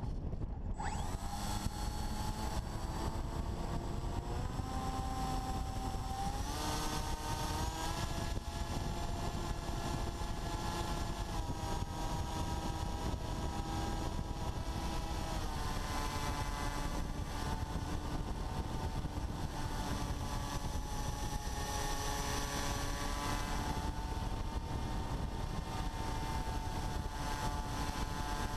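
Brushless electric motor and propeller of an FPV Raptor RC plane whining in flight, with wind rushing over the onboard camera. The whine's pitch dips right at the start, climbs about a quarter of the way in and shifts up and down a few more times as the throttle changes.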